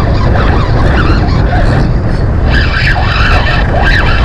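Heavy wind buffeting the microphone over surf washing against the jetty rocks, while a spinning reel is cranked to bring in a hooked fish. From about two and a half seconds in, wavering high squeals join the roar.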